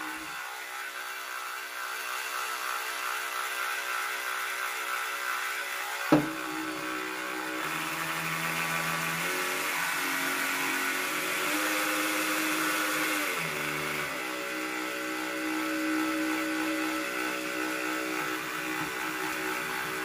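Makita DTM50 18V cordless multi-tool running on the bench with its housing open, a steady motor whir with the oscillating head working; the pitch changes a few times in the middle, and there is one sharp knock about six seconds in. The rebuilt gearbox is oscillating again, so the tool is working.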